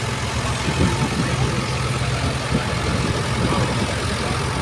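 Tractor diesel engines running steadily at low speed, the nearest being a Ford 7610 passing close by.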